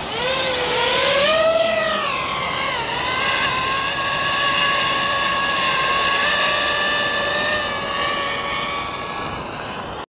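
DJI FPV drone's motors and propellers whining as it spins up and lifts off, the pitch rising over the first couple of seconds, then a steady whine as it climbs away, a little quieter near the end.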